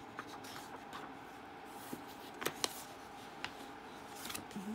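Magazine pages being handled and turned: soft paper rustles and a few light clicks, with two sharper crackles about halfway through, over a faint steady hum.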